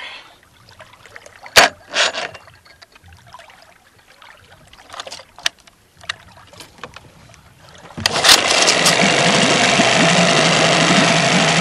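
A small outboard motor with its cowling off catches suddenly about eight seconds in and keeps running steadily and loudly, its throttle linkage just freed up. Before that there are a few sharp clicks and knocks.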